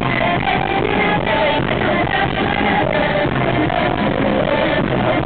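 Live band playing a song at full volume, with singing over the instruments.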